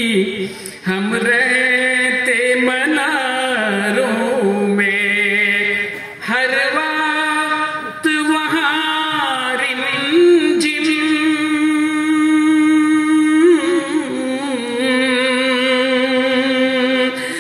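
A man singing an Urdu naat in long, drawn-out phrases, holding and bending single notes with a wavering ornament. There are a few brief breaks for breath between phrases.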